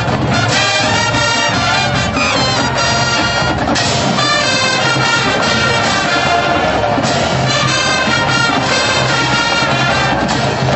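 Marching band playing loud brass music, trumpets and other horns over drums.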